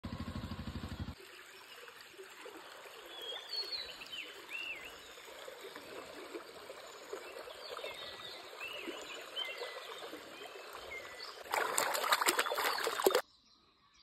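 Shallow stream trickling and splashing over rocks, with small birds chirping over it. A short low buzz opens it, and near the end the water rush grows much louder for a couple of seconds before cutting off abruptly.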